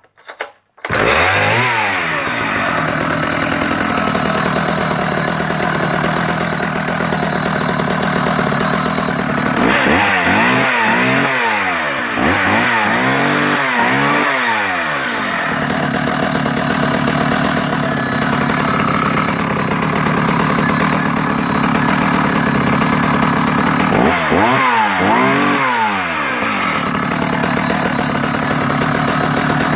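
Vintage Husqvarna 280 77cc two-stroke chainsaw starting about a second in, then running at idle and revved up and back down: once just after it starts, in a quick burst of several revs in the middle, and twice more near the end.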